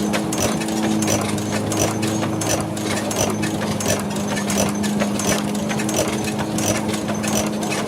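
Early-20th-century Behrendt horizontal gas engine from Gardelegen running at low speed, with a regular clicking about twice a second over a steady hum.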